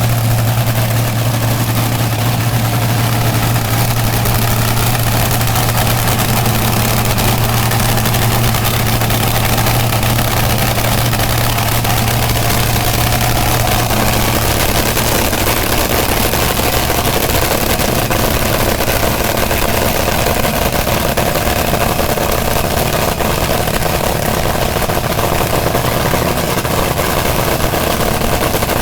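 Eight-cylinder engine running loud and steady at idle, with a strong low hum.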